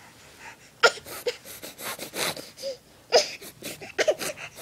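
Baby's excited, breathy vocalising: a string of short huffs and brief squeals.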